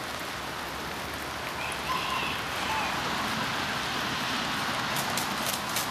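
A steady outdoor hiss, with a few faint short goose calls about two seconds in and a few sharp clicks near the end.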